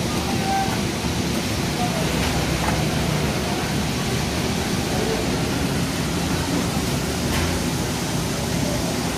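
Steady hubbub of a busy night-market food stall: indistinct background chatter over an even hiss, with a few light clinks.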